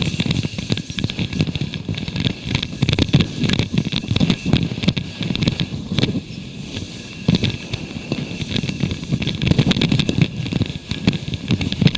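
Wind buffeting a helmet camera's microphone in ragged, crackling gusts, with parachute and wingsuit fabric flapping in the airflow as the jumper spins under a canopy with twisted lines.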